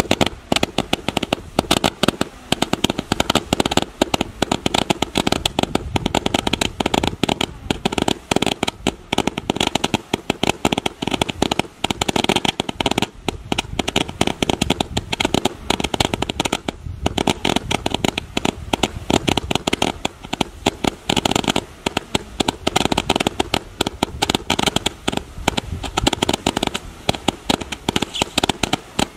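Three Robo-Eagle barrage candles firing at once, a dense, continuous stream of rapid small pops as shot after shot launches.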